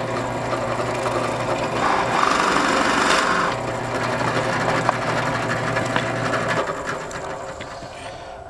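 Benchtop drill press motor running, with a 1-inch Forstner bit cutting into pine about two seconds in, deepening a countersink for a T-nut that sat a little high. The motor then runs down and fades near the end.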